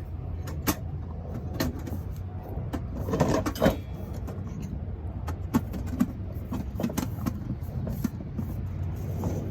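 Thin sheet metal clicking and rattling in scattered knocks as a cut galvanized disc is handled and set onto the tabs of a spiral duct end, with a louder cluster of rattles a little past a third of the way in. A steady low hum runs underneath.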